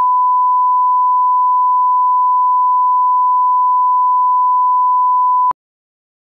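Broadcast line-up tone: a steady 1 kHz reference sine tone played with colour bars, holding one pitch and level and cutting off abruptly about five and a half seconds in.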